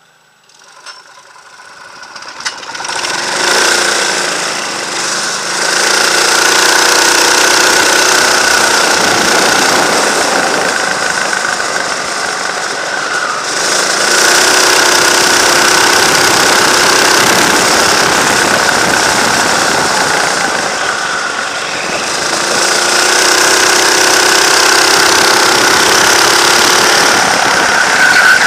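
Go-kart engine heard from the kart's onboard camera, running hard around the track. It builds up from near quiet over the first three seconds, then holds loud, its pitch rising and falling with three short dips as the throttle eases.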